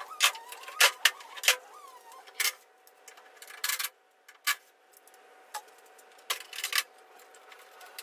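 Locking clamps being released and pulled off a steel corner guard: a string of sharp, irregular metal clicks and snaps, about a dozen.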